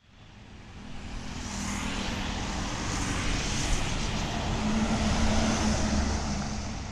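Luxury coach's diesel engine and tyres approaching and passing close by: a low engine hum and road roar that build up to a peak about five seconds in, then die away near the end.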